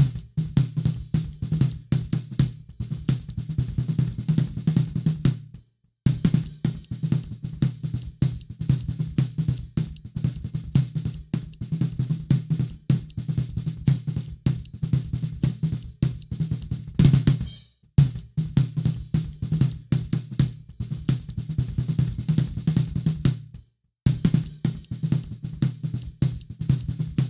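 A recorded drum kit playing a busy groove of kick, snare, hi-hats and cymbals, played back during mixing. Playback stops abruptly and starts again three times, with a cymbal crash just before the second stop.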